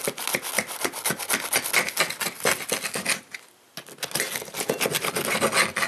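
Knife sawing back and forth through a calzone's crisp, well-browned crust: a fast run of crunchy rasping strokes that pauses briefly about three seconds in, then starts again.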